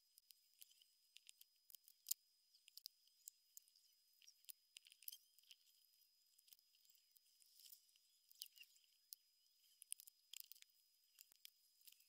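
Faint, irregular clicks and taps of LEGO plastic bricks being handled and pressed together, several a second at the busiest.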